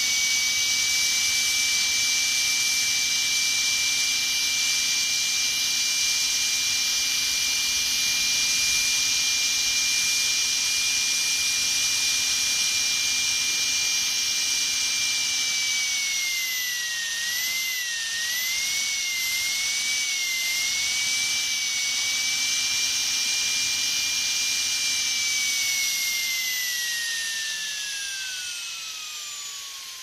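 Dentist's drill whining at a steady high pitch. A little past halfway its pitch dips and wavers for a few seconds before settling again, and near the end it winds down, the whine falling steadily in pitch.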